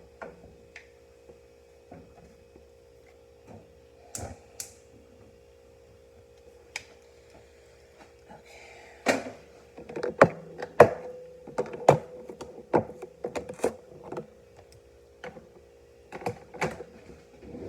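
Kitchen clatter: scattered clicks and knocks of utensils and containers being handled while chili dogs are put together, with a run of louder sharp knocks about nine to fourteen seconds in, over a steady hum.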